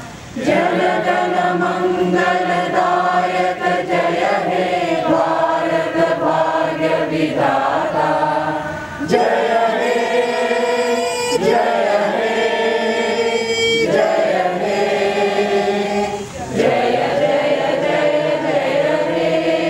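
A group of people singing together in unison, with long held notes in phrases a few seconds long.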